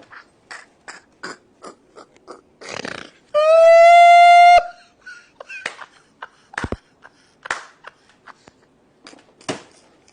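Comedy laughing sound effect: a string of short laugh-like bursts, about two a second, broken about three seconds in by a very loud, held, high-pitched squeal lasting just over a second, the loudest part.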